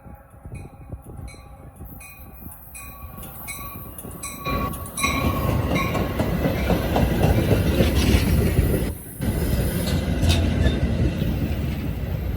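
Metra commuter train arriving and passing close by: a quieter stretch with a faint ringing about twice a second, then a sudden loud rumble and rattle of the train from about four and a half seconds in.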